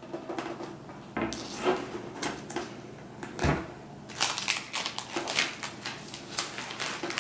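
Plastic wrapping crinkling and rustling as it is pulled off a desktop computer tower's case, in irregular crackles that grow denser toward the end, with a dull thump about halfway through.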